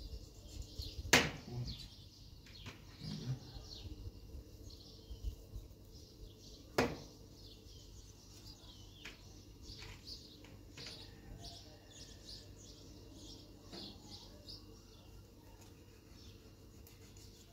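Small birds chirping over and over in quick short calls, with two sharp knocks: a loud one about a second in and another several seconds later.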